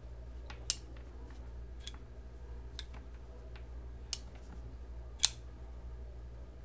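Compact titanium-scaled flipper knife being snapped open and shut by hand: a series of sharp metallic clicks as the blade swings out and locks and is closed again, about five loud ones with fainter clicks between, the loudest about five seconds in.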